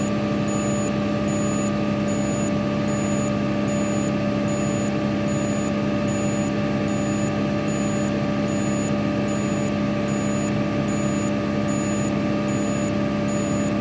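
Komatsu PC200-8MO excavator's diesel engine running steadily at high revs, about 2,050 rpm, heard from inside the cab. A short high beep repeats about every three-quarters of a second throughout.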